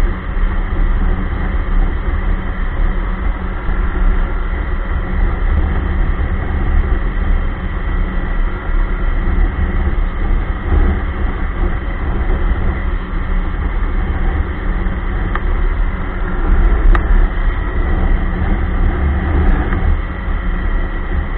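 Ski-Doo Expedition LE snowmobile running while being ridden, its engine and track giving a steady, heavy rumble.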